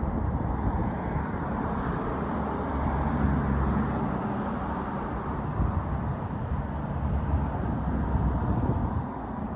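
Steady outdoor rumbling noise, strongest in the low range, with no single distinct sound standing out.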